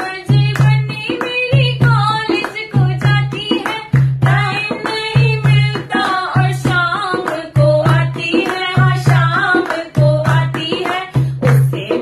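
A Hindi banna-banni wedding folk song, sung over a steady, repeating hand-drum beat.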